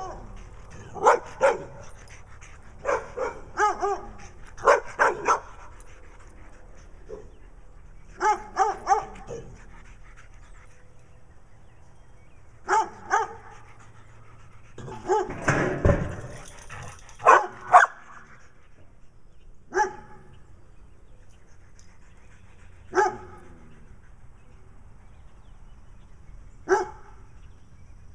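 A dog barking in loud, sharp barks, at first in quick groups of two or three, then single barks every few seconds toward the end.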